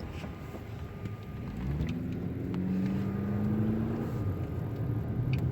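Car running along a road, a steady low rumble of engine and tyres heard from inside the cabin. About two seconds in, the engine note rises and grows louder as the car accelerates.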